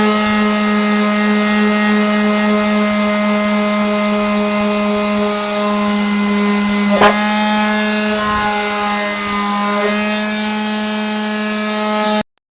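Small Parkside electric household sander running steadily with its pad rubbing on the rusty steel of a car's wheel arch, a constant hum with a hiss over it and a brief sharp knock about seven seconds in. It is switched off and cuts out abruptly near the end.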